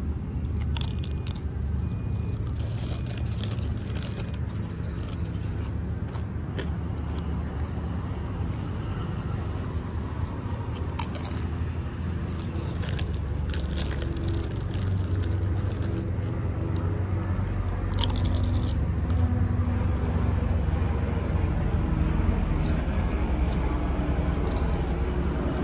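Sun Chips crunching and crackling as they are broken up and pecked at, in scattered sharp clicks over a steady low rumble.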